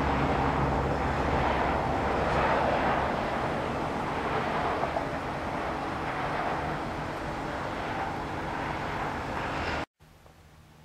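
Engine running steadily outdoors: a low, even hum under a broad rushing noise, which cuts off abruptly near the end and leaves faint room tone.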